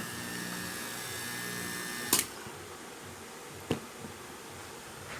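Steady electrical hum of a running half-horsepower aircon compressor that stops with a sharp click about two seconds in, as the power is switched off; a second, lighter switch click follows about a second and a half later.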